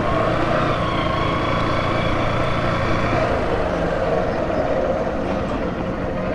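Steady running and road noise of a motorcycle being ridden through town traffic.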